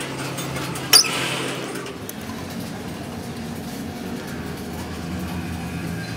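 A single sharp metal clank about a second in, as a steel hand tool strikes the lathe's chuck or carriage, over a steady low machine hum.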